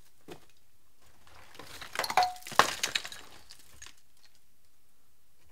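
Rubble and old pipe work clattering and clinking as debris is pulled out of a hole: a burst of knocks about two seconds in, the loudest near the middle, with one short ringing note.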